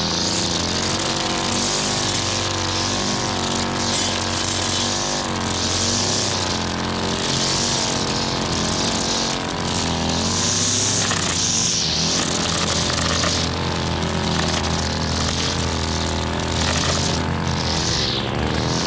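Gas string trimmer running steadily while its spinning line cuts grass along a concrete curb; the high hiss of the line swells and fades as it sweeps through the grass, over a steady engine drone.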